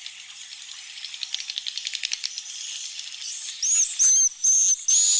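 Swiftlet colony sounds: dense, fast, high-pitched twittering and clicking. From about three and a half seconds in come loud hissing calls with a high steady whistle, about four in quick succession.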